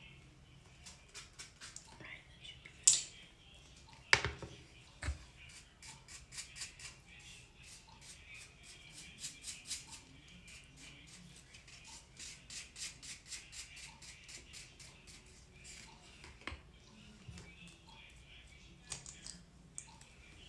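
Makeup items (a concealer tube, a brush and a small stick) being handled and worked at a countertop: a fast run of light scratchy ticks, with two sharp clicks about three and four seconds in and a dull knock just after.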